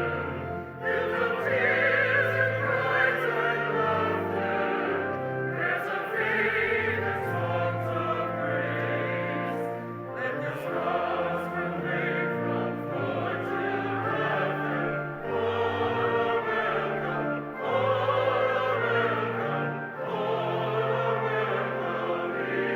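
A choir singing a hymn in sustained chords, with a steady bass line beneath the voices.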